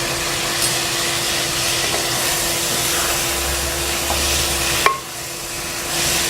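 Mashed boiled potatoes being stirred and fried into an onion-tomato masala in a pan, with steady sizzling and a spatula working the mixture. There is a single sharp clink about five seconds in.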